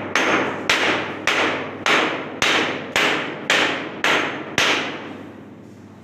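Repeated hard blows against a concrete ceiling slab, about nine of them at an even pace of roughly one every half second, each with a short ringing decay, stopping near the end. The slab is being knocked along its length to find where the sound changes over a buried junction box or conduit.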